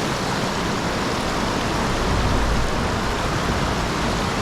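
Steady rush of flowing stream water, with a low rumble swelling briefly about two seconds in.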